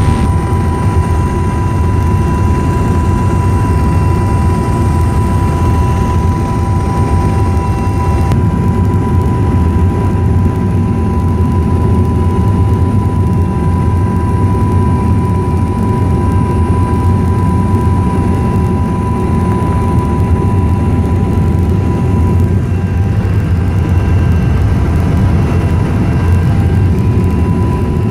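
Cabin noise of an Airbus H175 twin-turbine helicopter in cruise flight: a loud, steady low drone with a constant high whine over it.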